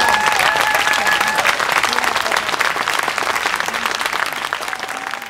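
Concert audience applauding: dense, rapid clapping from a large seated crowd, with one person's held whoop over it for the first second and a half. The clapping eases slightly toward the end.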